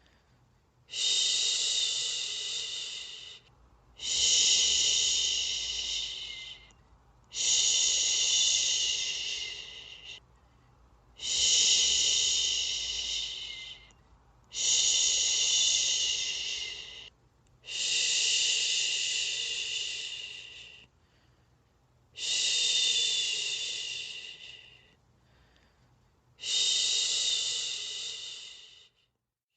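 A person shushing a baby to sleep: eight long, drawn-out 'shhh' sounds of two to three seconds each, every one starting loud and tapering off, with short pauses for breath between them.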